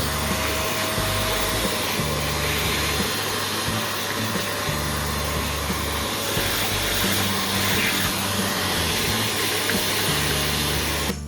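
Steady, loud rushing noise of a blower motor, cutting off abruptly near the end, over background music with a stepping bass line.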